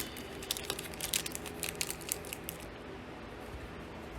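Crinkling and tearing of a trading card pack's wrapper, a quick run of short crackles that dies down after about two and a half seconds.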